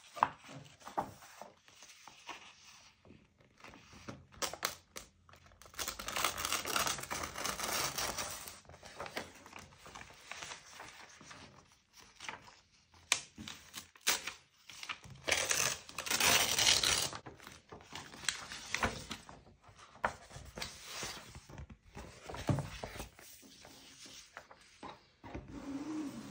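Paper being handled and torn close to the microphone: rustling, small taps and clicks, with two longer tearing or rubbing stretches several seconds apart.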